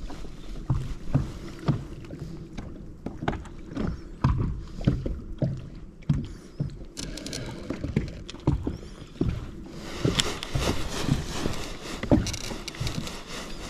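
Small waves slapping against the hull of a small fishing boat in irregular low knocks. From about ten seconds in, a steadier hiss joins them.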